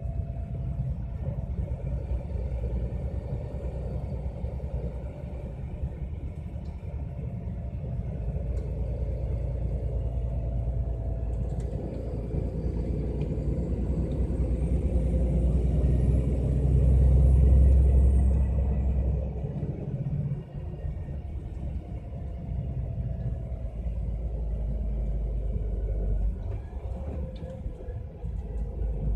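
MAN Lion's Coach running downhill with its retarder braking, a steady low rumble that swells to its loudest a little past halfway and then eases. Over that loudest stretch a faint high whine rises and falls.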